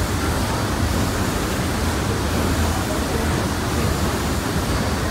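The 1910 Sulzer Frères two-cylinder compound steam engine of a paddle steamer, running at cruising speed: a steady low rumble with a loud, even rushing noise over it.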